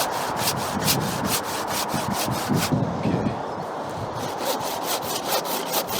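Hand saw cutting through an apple tree branch in quick back-and-forth strokes, about five a second, in two runs with a short pause between.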